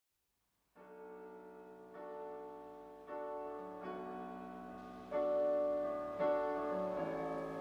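Piano music of slow sustained chords, starting out of silence just under a second in, with a new chord struck about every second and growing gradually louder.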